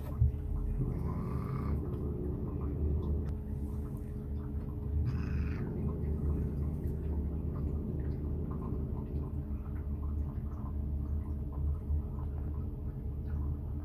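A domestic cat purring steadily, with two short cat cries, one about a second in and a higher one about five seconds in.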